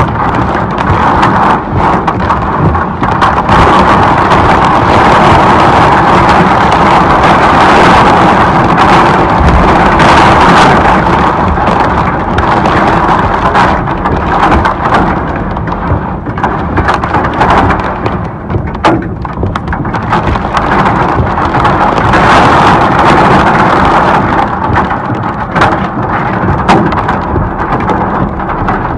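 Heavy rain and hail pelting down: a dense, steady rush with scattered sharp strikes of hailstones.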